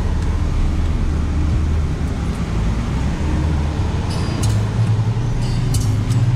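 In-cabin engine and tyre noise of an SUV driving over sand, a steady low rumble. About four seconds in, the rumble changes to a steadier low hum, with a few sharp clicks or rattles near the end.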